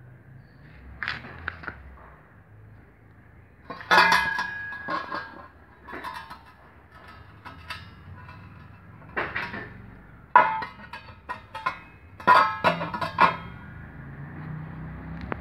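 Metal-on-metal clinks and clanks: a series of short, sharp metallic knocks, each with a brief ring. They come irregularly, and the loudest fall about four, ten and twelve seconds in.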